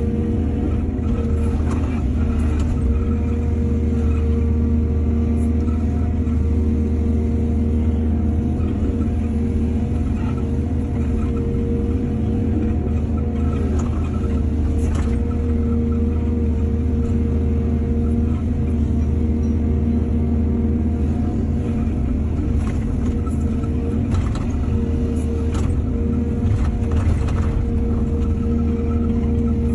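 Excavator's diesel engine running steadily with a low drone, with scattered knocks and clanks from the working machine.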